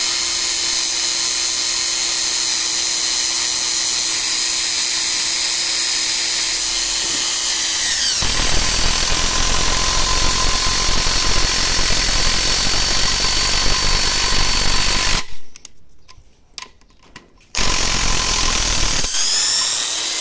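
Parkside PDSSA 20-Li A1 cordless brushed impact driver sinking a 6 × 200 mm screw into a wooden beam. For about eight seconds the motor whines at a steady pitch, then the impact hammer kicks in under the screw's resistance with a louder rattling hammering that stops about fifteen seconds in. After a short pause there is one more brief burst of hammering to seat the screw, and the motor winds down near the end.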